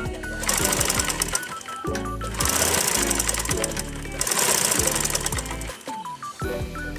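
Manual sewing machine stitching, its needle mechanism clattering in runs that stop and start again, with music playing at the same time.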